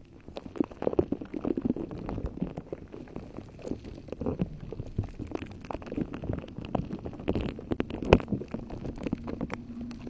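Slime being squished and pressed: a dense, irregular run of wet squelches and small popping clicks, with one louder pop about eight seconds in.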